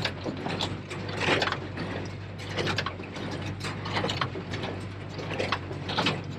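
New Holland 273 square baler running, with repeated mechanical clicking and clanking over the steady low drone of the tractor driving it.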